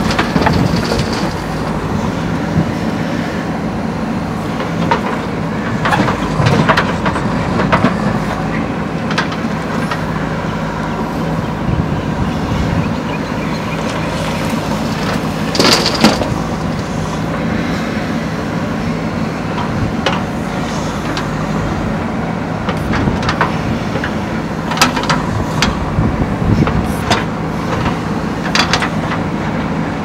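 JCB 3DX Super backhoe loader's diesel engine running steadily under working load as the backhoe digs and swings, with knocks and clatters from the bucket. A loud clatter about halfway through as a bucketful of soil drops into the steel bed of the dump truck.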